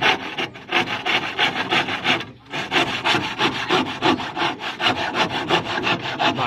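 Hand saw cutting wood in quick, even back-and-forth strokes, with a short pause a little over two seconds in. It is trimming a sliver off a boat frame piece so the joint fits flush.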